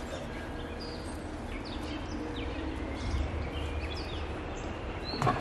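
Small birds chirping, many short high calls that slide downward, over a steady low rumble, with a single sharp knock near the end.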